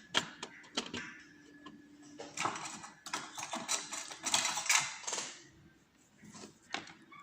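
Small metallic clicks, rattles and scraping as a challenge lock is taken apart and its pins handled. Sharp clicks come first, then longer scratchy rattling through the middle, dying away after about five seconds.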